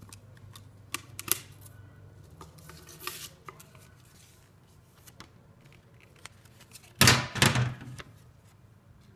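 Packaging and a paper instruction leaflet being handled: scattered light clicks and taps, then a loud burst of paper rustling lasting about a second, some seven seconds in.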